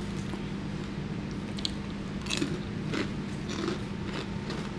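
Close-up chewing of crunchy Hot Cheetos: several irregular crunches spread over a few seconds as a mouthful is chewed.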